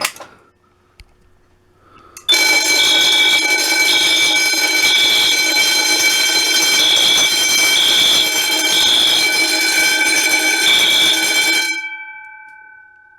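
Wheelock 10-inch fire alarm bell ringing continuously, very loud, together with a Wheelock AS horn beeping the temporal code-3 pattern: three beeps, a pause, repeated. Both start about two seconds in and cut off near the end, and the bell's tones ring on and fade.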